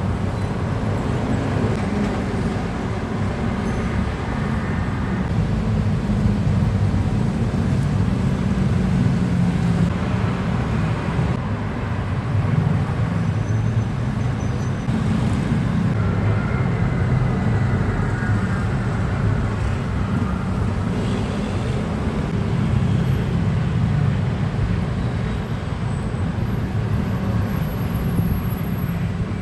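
Steady low rumble of road traffic, with faint passing vehicle tones in the middle.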